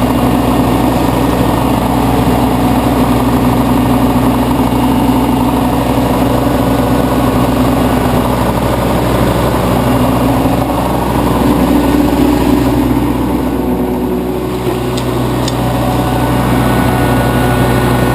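Propane-fuelled engine of a Pelsue manhole generator / air compressor running steadily, its tone shifting a little around the middle.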